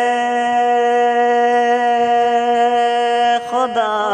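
Male voice singing a naat unaccompanied, holding one long steady note for about three seconds. A short break with quick pitch slides follows, and the next note begins near the end.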